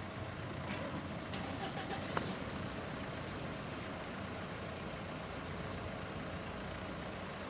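A steady engine running at a low, even level, with a faint steady hum over it. A few light clicks come about one and a half to two seconds in, the sharpest just after two seconds.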